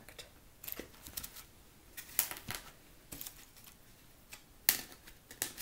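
Irregular light clicks and taps of wooden toothpicks being handled and pushed into foam pool noodles, with one sharper click near the end.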